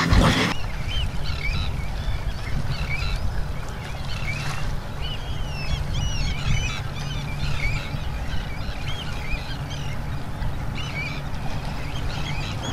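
Ambient outdoor soundscape: many birds calling in short chirps over a steady low rumble. A louder sound at the very start cuts off about half a second in.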